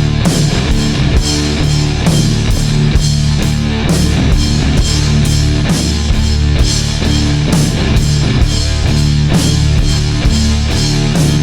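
Rock music with distorted electric guitar, bass and a drum kit keeping a steady beat.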